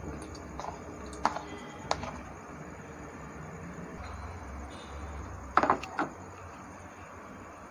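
Chopped fruit being tipped off a plate into a steel pot of sugar syrup: a few light clicks and knocks of the plate or utensil against the pot, the loudest cluster about six seconds in, over a low steady hum.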